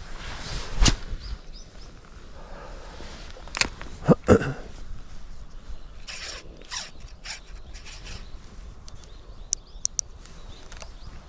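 Shimano 21 Ultegra spinning reel squealing and creaking with an abnormal noise as it is worked, heard as a series of sharp clicks and short squeaks, the loudest about a second in and around four seconds in, with quicker high squeaks later.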